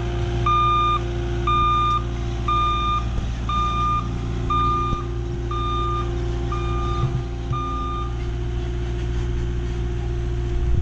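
Caterpillar 257D compact track loader's backup alarm beeping about once a second over its steady diesel engine as the loader reverses up onto a trailer. The beeps stop about eight seconds in, when the loader stops backing, and the engine keeps running.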